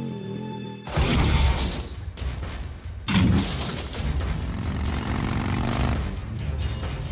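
Harley-Davidson motorcycle engine running as the bike flies off a ledge, then a heavy impact about a second in as it lands on the concrete canal floor, and a second loud crash about two seconds later. Engine and vehicle noise carry on under the film music.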